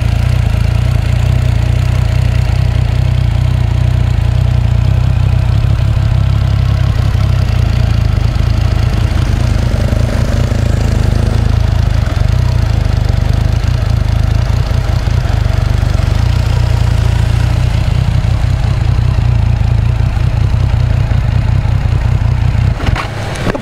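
Triumph Street Triple R's inline three-cylinder engine running steadily at low revs as the motorcycle is ridden slowly in a circle, dropping in level just before the end.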